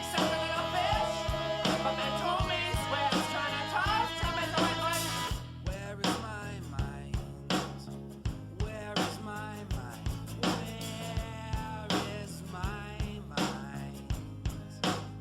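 Background music: a rock song with a sung vocal line, guitar and a steady drum beat.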